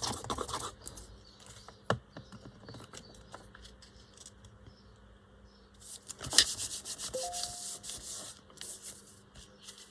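Paper being rubbed and slid against paper as it is handled, a dry scratchy rustle. It comes briefly at the start and again louder from about six seconds in, with a sharp tap just after that.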